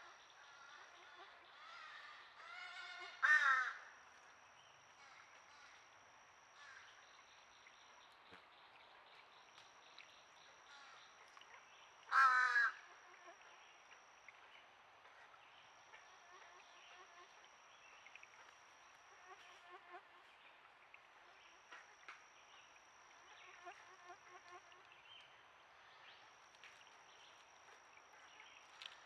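Two loud, harsh bird calls about nine seconds apart, over a steady background of insects with a high thin tone that comes and goes.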